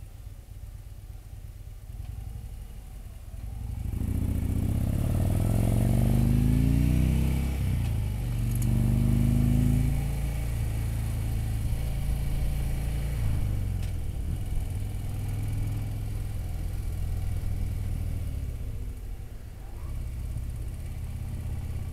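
Touring motorcycle engine, low and steady at first, then accelerating from about four seconds in: it revs up, drops briefly at a gear change and revs up again. It then settles into steady cruising, easing off a little near the end.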